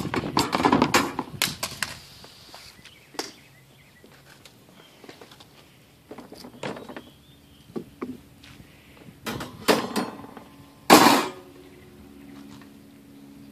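Metal wire dish-rack parts clattering and knocking against each other and a plastic tub as they are set down. A burst of clatter comes at the start, then scattered single knocks, the loudest about eleven seconds in.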